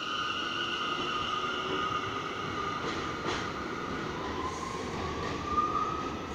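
New-technology NYC subway train pulling away from the platform: its propulsion whines in steady tones that shift in pitch and rise again near the end, over wheel-on-rail noise, with a couple of sharp clanks about three seconds in.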